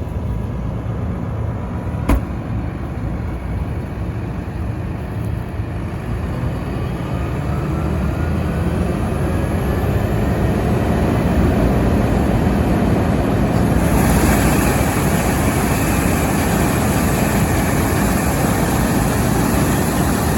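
Heavy vehicle's engine running steadily with a deep rumble and a faint whine that rises in pitch, growing brighter and a little louder about two-thirds of the way through.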